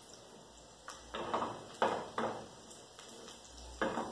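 A utensil scraping a glass mixing bowl in several short strokes, emptying it into a frying pan: a cluster of strokes from about a second in to just past two seconds, and one more near the end.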